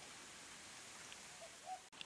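Faint forest ambience with a steady hiss, and a distant bird giving two short low calls near the end. The sound cuts out for an instant just before the end.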